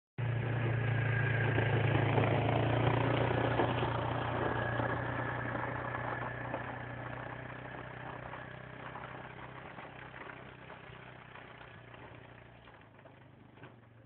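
ATV engine running as the quad drives away, its steady hum fading gradually into the distance.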